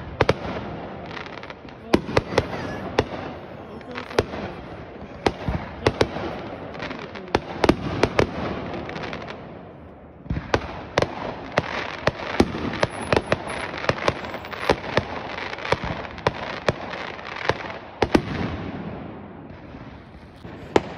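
Consumer aerial fireworks going off in a rapid series of sharp bangs over a continuous crackle. There is a short lull about ten seconds in before the volley resumes, and the bangs thin out near the end.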